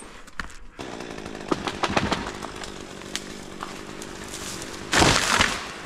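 A chainsaw running steadily, fairly faint, under close clicks and rustling from climbing up through pine branches, with a loud brushing rustle about five seconds in.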